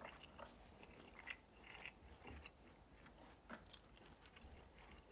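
Faint chewing and eating sounds: soft mouth noises with a few small, scattered clicks.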